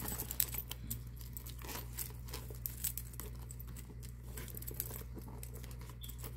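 Rustling and crinkling as a denim tote bag is handled and turned over, its handles still in protective wrapping, with many small clicks. A low steady hum sits underneath.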